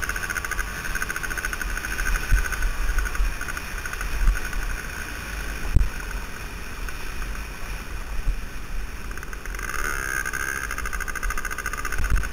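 Suzuki DS80's small two-stroke single-cylinder engine running steadily under way on a dirt trail, with low wind buffeting on the helmet microphone. A few thumps from bumps come in the first half.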